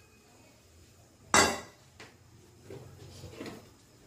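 A single sharp metallic knock on a stainless-steel mixer-grinder jar about a second and a half in, ringing briefly, followed by a few softer clinks and rustles as a handful of coriander leaves goes into the jar.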